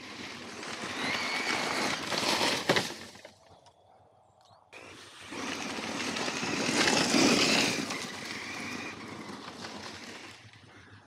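Arrma Mojave 6S RC truck running hard in two bursts: the high whine of its brushless motor and drivetrain over the rush of tyres on gravel and grass. The first burst builds, has a sharp knock at its peak and cuts off. After a short lull it starts again suddenly and fades away.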